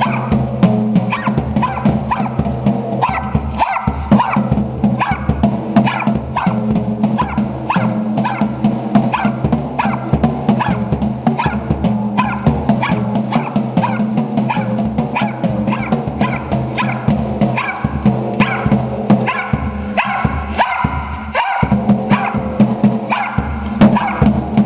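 A dog working a bass drum pedal, the beater hitting the kick drum in quick, uneven beats, several a second, over a low ringing drone, with the dog's barks mixed in.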